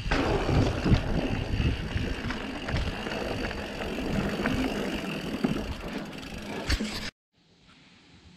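Mountain bike, an Orbea Occam AM, riding fast down a dirt singletrack: tyre rumble on the trail with rattles and clicks from the bike, under wind buffeting on the microphone. The noise cuts off suddenly about seven seconds in, leaving quiet outdoor background.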